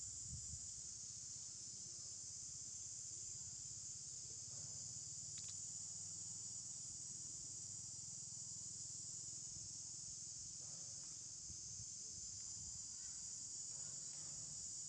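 Steady, high-pitched insect chorus droning without a break, over a faint low rumble.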